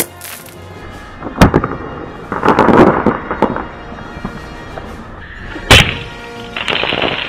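Airsoft 40mm grenade launcher (VFC EGLM) firing twice, sharp loud reports about four seconds apart, each followed about a second later by a short noisy clatter, over background music.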